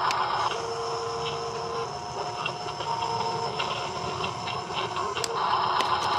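Huina RC dump truck's electric tipper motor and gears whirring as the dump bed lowers, with a steady motor whine. A louder, rougher gear whirr is heard at the very start and comes back near the end.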